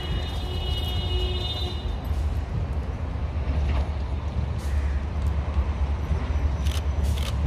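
CFR IFTE catenary-maintenance draisine approaching along the track with a steady low rumble. The tail of its multi-tone horn fades out about two seconds in, and two sharp clicks sound near the end.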